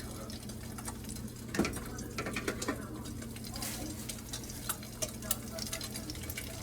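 Eggs frying in oil in a pan: a faint sizzle with scattered crackles. Clicks and a louder knock about a second and a half in come from a utensil against the pan.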